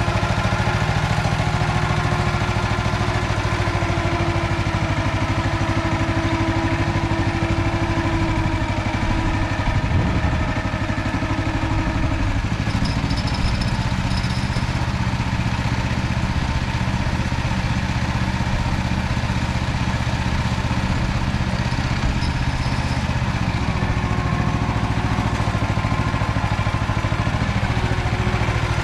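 Engine of an MT8-070 Mini two-wheel walk-behind tractor running steadily while pulling a plough. Its note shifts a little about twelve seconds in, after a brief clatter.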